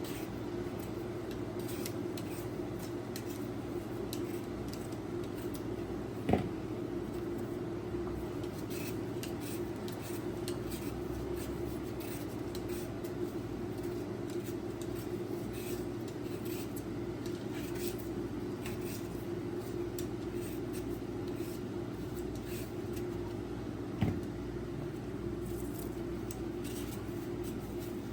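Kitchen utensils being handled: faint scattered clicks and scrapes over a steady hum, with two sharper knocks, one about six seconds in and one near the end.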